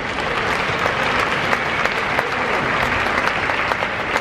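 Spectators in a large hall applauding a point just won in a table tennis match, dense clapping that swells up and holds steady.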